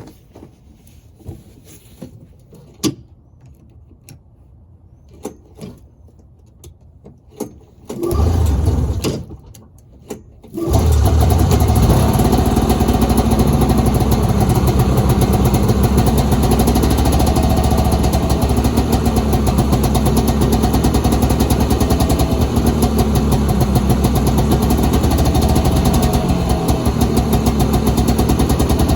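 1983 Polaris Indy 440's two-stroke twin-cylinder engine being pull-started cold on choke: it fires for a moment about eight seconds in, then catches about two seconds later and keeps running steadily. A few light clicks and knocks come before it.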